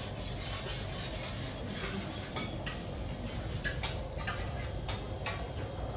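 Utensils at a teppanyaki table: a steady rubbing scrape, joined from about two seconds in by a series of sharp light clicks and clinks.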